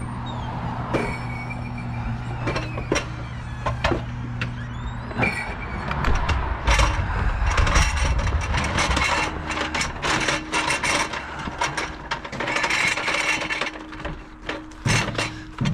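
An empty metal hand truck rattling and clattering as it is wheeled over a wooden walkway and icy pavement, its wheels and frame knocking with every bump. A steady low machine hum is heard for about the first five seconds, and then the rattling grows dense.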